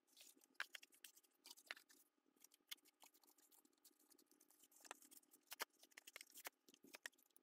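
Faint, scattered clicks and short scratches of thin cardboard being handled and a glue stick rubbed across it, coming in small clusters with gaps between.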